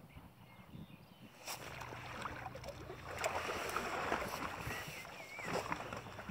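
Water splashing and sloshing as a hooked fish is drawn into a landing net. It starts about a second and a half in and is loudest in the middle.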